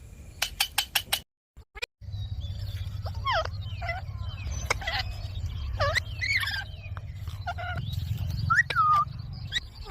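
Young ring-necked parakeet giving a string of short, bending chirps and squawks over a low background rumble, after a few sharp clicks and a brief dropout at the start.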